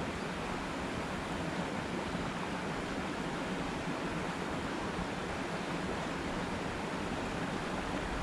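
Steady rushing noise of creek water running, even and unbroken.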